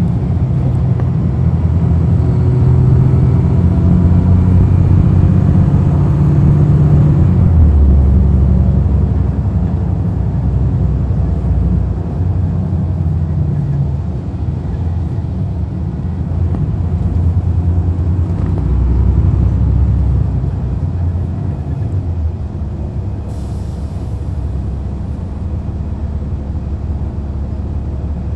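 Cummins ISL9 diesel engine of a NABI 40-foot transit bus running under way, heard from inside at the rear of the bus. The engine note drops about eight seconds in and the level eases off, and there is a short hiss of air near the end.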